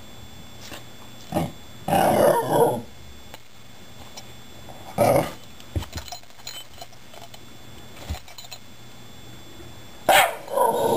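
Shiba Inu "talking": short bouts of low growly grumbling, the longest about two seconds in, another about five seconds in and a fresh run starting near the end.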